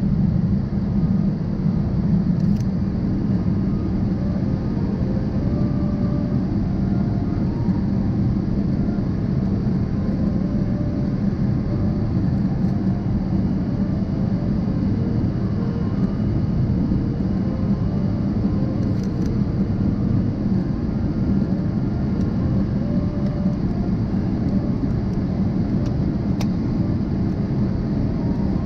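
Steady cabin noise of a jet airliner in flight, heard from a window seat over the wing: an even, low rumble of the engines and rushing air.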